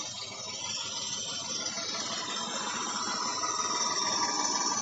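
Homemade toy tractor's engine sound effect played through its small built-in loudspeakers: a steady, rattly running noise that grows gradually louder.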